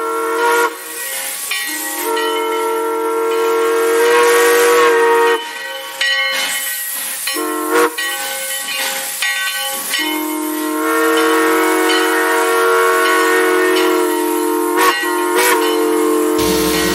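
Steam locomotive whistle sounding a chord of several notes at once in a series of long blasts, with steam hissing throughout.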